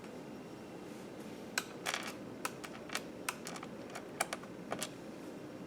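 An irregular series of light, sharp clicks and taps, about a dozen of them starting about a second and a half in, from small hard parts and tools being handled on a laptop's bottom case.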